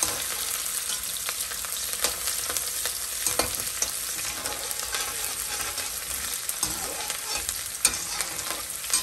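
Chopped onions sizzling in hot oil in a steel kadai, stirred and scraped with a metal slotted spatula that clicks against the pan now and then. The onions are being fried until lightly browned.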